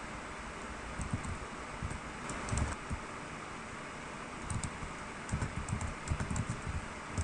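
Typing on a computer keyboard: short, irregular runs of keystrokes over a steady background hiss.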